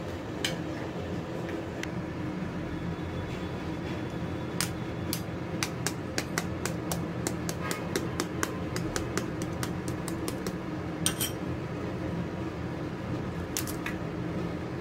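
Light clicks and taps on a small glass bowl as a spoon works through chopped onion and an egg is handled and broken over the rim. The clicks come in a quick run from about a third of the way in, with a few more later, over a steady low hum.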